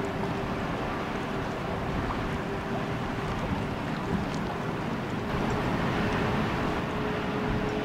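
Low, steady drone of a harbour tug's and a cruise ship's engines while they manoeuvre, with a steady hum that stands out more in the second half and wind noise on the microphone.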